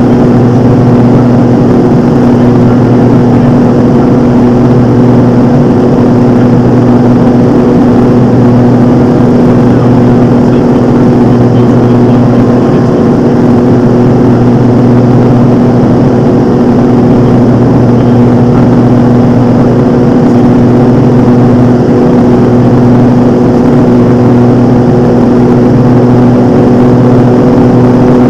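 Single-engine light aircraft's piston engine and propeller droning loudly and steadily at a constant pitch, heard inside the cockpit.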